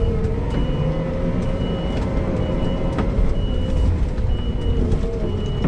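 Diesel engine of a Kramer KT407 telehandler running as it works soil, heard from inside the cab, with a high-pitched reversing alarm beeping about once a second.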